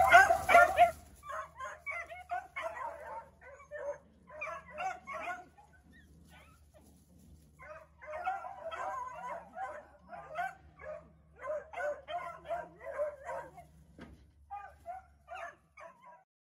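Beagle puppies yipping and barking in quick bursts of short, high calls, loudest right at the start. The calls ease off around six to seven seconds in, then pick up again.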